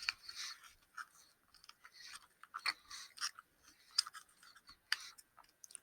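Close-up chewing of a gummy candy burger bun: faint, irregular wet mouth clicks and smacks, picked up by a headset microphone.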